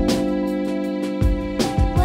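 Background music: sustained chords over a steady, low kick-drum beat.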